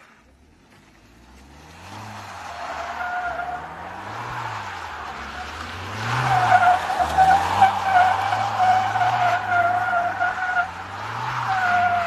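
Mahindra Thar's tyres squealing on asphalt as it drifts in circles, with the engine revving up and down beneath. The squeal is faint at first, builds after a couple of seconds, and is loudest from about halfway on.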